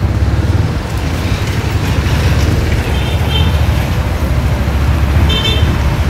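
Carrier inverter air conditioner's compressor running, a steady low humming heard through the unit's rear vent grille, the sign that the compressor has started.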